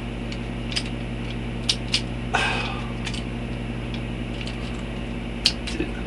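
Scattered small clicks and taps of a plastic Transformers Animated Deluxe Ratchet figure being handled and its parts worked during transformation, with a brief rustle about two and a half seconds in. A steady low electrical hum runs underneath.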